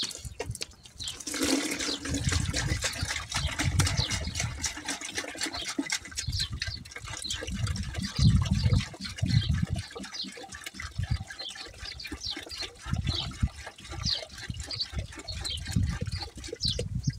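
Water being poured into a container, starting about a second in and running for several seconds. It comes with low bumps and handling knocks, and birds chirp faintly.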